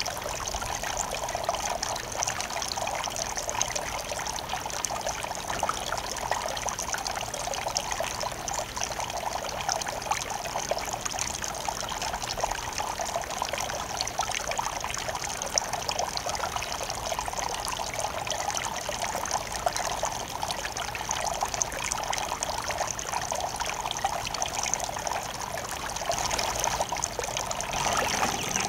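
Garden fountain water trickling and splashing steadily.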